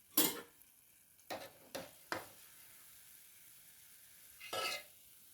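Half cakes (ngumus) deep-frying in hot oil with a steady sizzle, broken by a few short strokes of a utensil stirring and turning them in the pan, the longest near the end.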